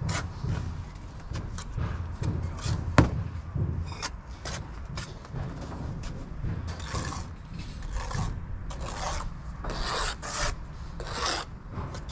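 Bricklayers' hand tools scraping and rubbing along fresh mortar joints in a brick wall, in repeated short strokes, with a sharp tap about three seconds in.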